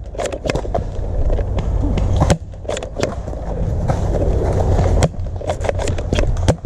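Steady low rumble of wind and handling noise on the microphone, with many sharp clicks and knocks scattered throughout.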